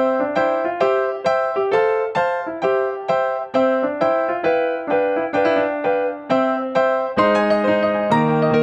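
Background music: a light piano melody in steady, separate notes, thickening with lower notes about seven seconds in.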